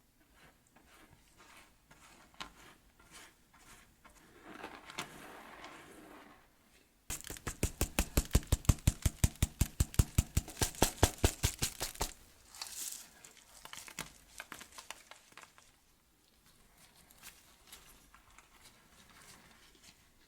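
A quick run of sharp, evenly spaced knocks from a kitchen utensil, about eight a second, starting about seven seconds in and lasting about five seconds. Softer handling, rustling and light clicks come before and after it.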